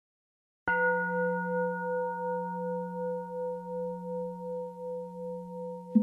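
A singing bowl struck once, about half a second in, ringing on with a low hum and several higher overtones that slowly die away with a steady pulsing waver. Another strike comes right at the end.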